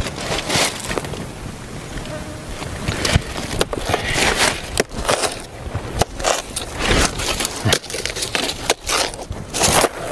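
Dry banana leaves and undergrowth crackling and rustling, with many irregular sharp snaps, as they are pushed aside and pulled at by hand at the base of a banana clump.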